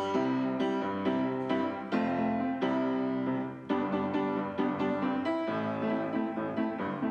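Background music led by piano, with notes struck at a steady rhythm.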